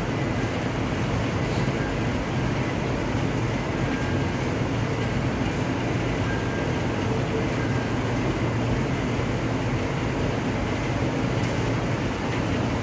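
Heavy rain pouring steadily onto wet pavement: a dense, even hiss with a low rumble underneath.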